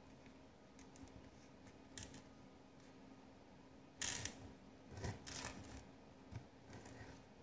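Knife cutting food on a plate: a few sharp scrapes and taps, the loudest about four seconds in, followed by several smaller ones.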